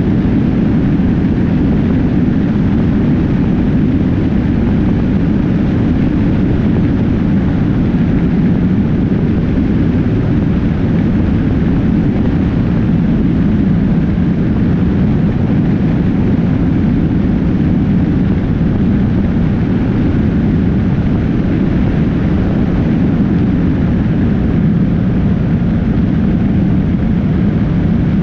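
Steady wind rush and road noise from a sport motorcycle cruising on a highway, heard through a camera mounted on the fairing, with the engine's drone buried in the wind. The noise is loud and unbroken, with no shifts or revs.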